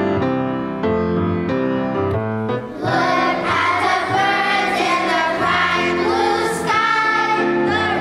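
Grand piano plays the last bars of an introduction. About three seconds in, a children's choir comes in singing, with the piano accompanying.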